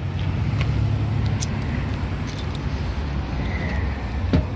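A motor vehicle's engine running steadily nearby, a low hum, with one sharp click near the end.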